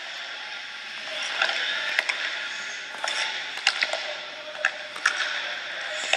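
Ice rink sounds from a hockey drill: skate blades scraping the ice, with several sharp clicks of stick blades meeting the puck.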